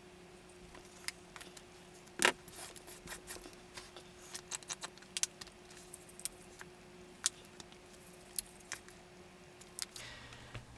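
Plastic craft paint bottles being handled: caps clicking and bottles tapping as paint is squeezed out onto a palette, with one sharper click about two seconds in and then a scatter of small clicks and taps.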